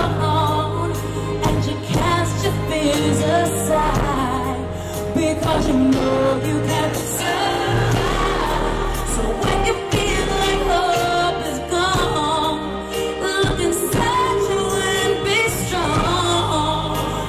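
A woman singing a slow pop ballad live into a handheld microphone, holding long notes with vibrato over band accompaniment through a concert sound system.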